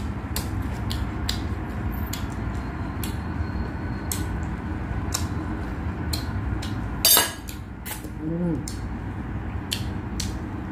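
Close-up eating sounds: a person chewing with many small wet mouth clicks over a steady low background hum. There is a louder, brief noisy crunch or rustle about seven seconds in and a short hum of the voice just after.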